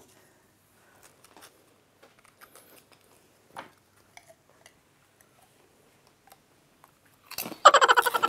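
Faint small clicks and taps of a drinking glass being handled, then near the end a man's loud throaty vocal sound with a rapid rattling pulse as he drinks.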